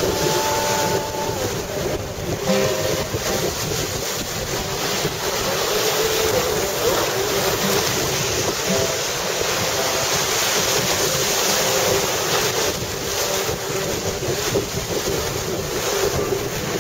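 Sea waves washing in over a rocky shore, a steady surging wash, with wind buffeting the microphone.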